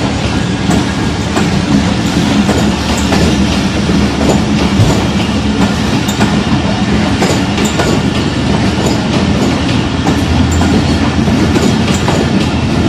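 Pakistan Railways passenger coaches rolling past, with a steady loud rumble and the wheels clicking irregularly over the rail joints.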